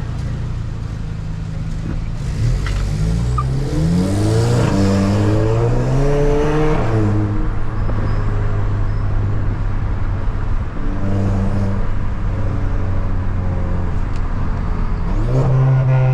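Volkswagen Jetta TSI's turbocharged 2.0 four-cylinder accelerating hard a few seconds in, its pitch climbing in steps through the upshifts, with an airy rushing on top. It settles back to a steady cruise about seven seconds in, and the revs step up again near the end.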